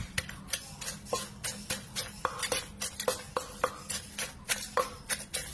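Wooden pestle pounding roasted green chilies into a paste in a clay mortar: a steady run of dull knocks, about three to four a second.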